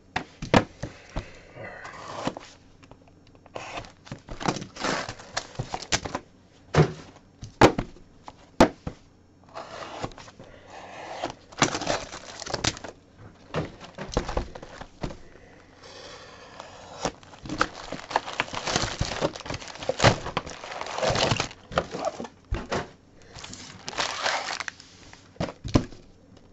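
Plastic shrink-wrap being torn and crinkled off sealed trading-card boxes, with irregular sharp clicks and knocks as the cardboard boxes are handled and set down on a table.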